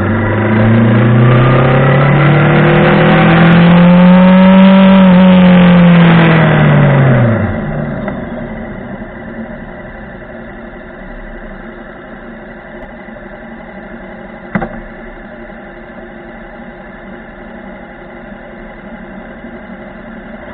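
Montana XR5 motorcycle engine and exhaust revving up, its pitch climbing for about four seconds and then falling away about seven seconds in, then settling into a quieter steady idle. There is a single sharp click about halfway through the idle.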